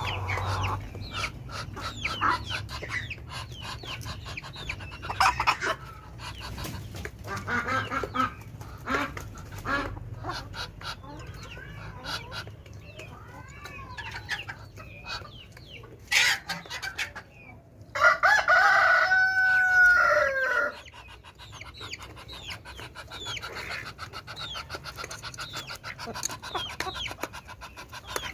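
Backyard poultry calling: chickens clucking in short repeated calls, with one long rooster crow about two-thirds of the way through.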